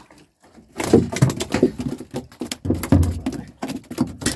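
A freshly caught mojarra flopping on the fiberglass floor of a small boat: a fast, irregular run of slaps and thuds that starts about a second in, with a few heavier thumps among them.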